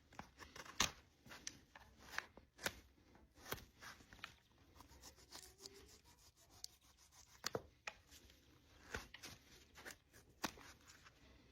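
Hoof-trimming tools cutting and paring the horn of a draft horse's front hoof: short, crisp cuts and scrapes at an irregular pace of about one or two a second.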